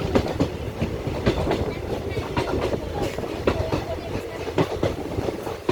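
Passenger train running along the track: a steady low rumble with frequent irregular clanks and knocks from the wheels and carriages.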